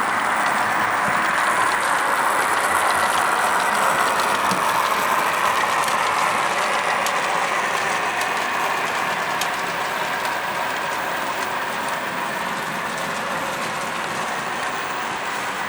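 Model train running along the layout's track: a steady mechanical whirr of the small electric motor, gearing and wheels on the rails, easing off slightly in the second half.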